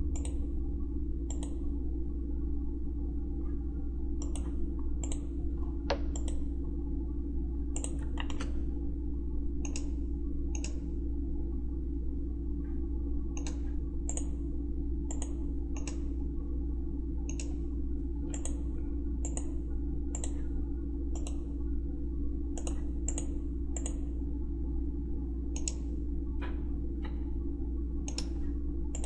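Computer mouse clicking at irregular intervals, often two clicks close together, over a steady low hum.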